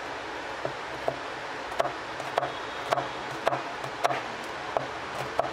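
A knife chopping a red onion on a plastic cutting board: sharp, even strikes about twice a second over a steady background hiss.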